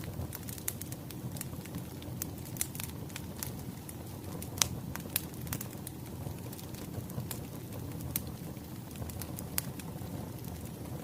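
Wood fire crackling, with irregular sharp pops over a steady low rumble and one louder pop about four and a half seconds in.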